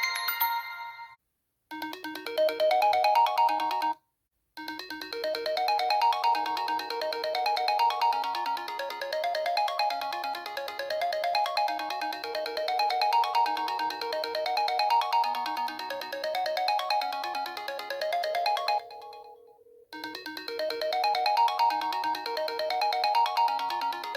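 iPhone 4 ringtones playing through the phone's speaker, one tone after another, with short silent breaks about a second in, about four seconds in and near the end where the tone changes. The longest tone repeats a run of rising notes over and over.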